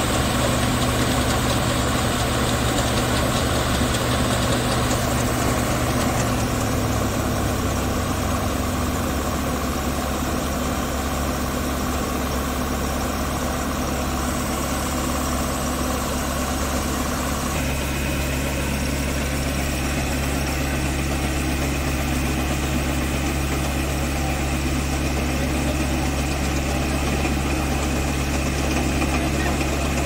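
Kartar combine harvester's diesel engine and threshing machinery running steadily while the unloading auger discharges rice grain. The steady hum shifts slightly in pitch twice, about six seconds in and again past the halfway mark.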